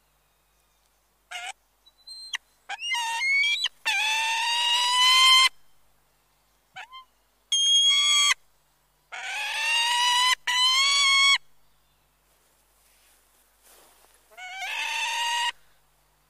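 Golden eagles calling: a series of high, drawn-out calls, each about a second long and rising slightly in pitch, with a few short notes in between and brief pauses.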